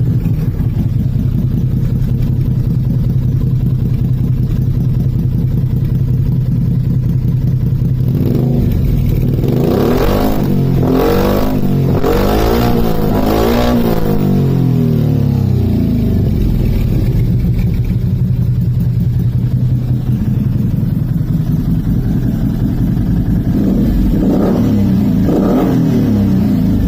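Can-Am Outlander 500's Rotax V-twin engine idling through an aftermarket replica Akrapovic muffler, revved in a run of quick blips from about ten seconds in, then blipped twice more near the end.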